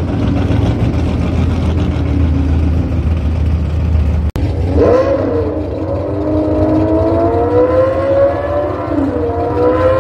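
Car engine at a drag-racing test-and-tune: a steady loud rumble, then after a sudden brief cutout a little under halfway, an engine revs up and accelerates, its pitch climbing steadily, dipping briefly near the end and rising again.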